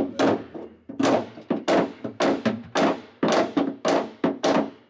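Rapid hammer blows, about three a second, each with a short ring, knocking a bow cleat loose from a fiberglass sailboat deck. The cleat is stuck fast because it was bedded in 5200 adhesive sealant.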